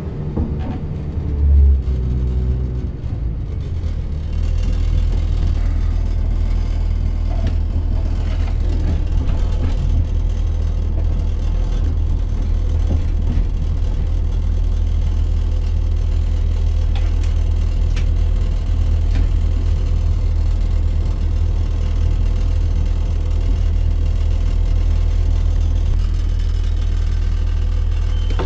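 Class 168 Turbostar diesel multiple unit heard from inside the carriage while on the move: a steady low drone of the underfloor diesel engine and wheels on the rails. There is a thump about a second and a half in.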